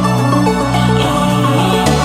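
Background music: an electronic pop track with a steady, repeating bass line and sustained synth notes.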